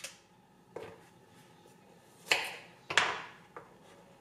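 A few sharp taps and knocks of things set down and handled on a wooden board. The two loudest come in the middle, a little under a second apart, each with a short tail.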